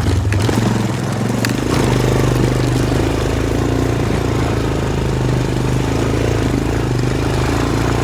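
Small off-road vehicle engine running steadily under throttle as it rides along the trail, with a few sharp clicks or knocks in the first two seconds.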